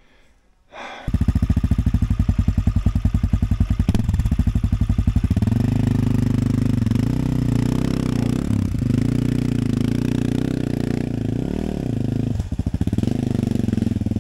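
AJP PR7 enduro motorcycle's single-cylinder engine, starting about a second in with a rapid, even thumping close by at low throttle, then revving up and down repeatedly as the bike climbs away over a loose rocky trail.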